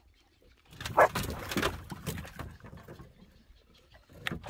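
A hooked barbel splashing at the water's surface beside the boat as it is brought in to be landed, loudest about a second in, with a dog's short calls. A second, shorter burst comes near the end.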